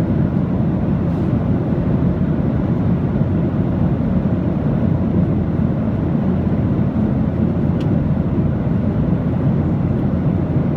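Steady aircraft noise: an even, deep rumble that holds constant throughout without rising or falling.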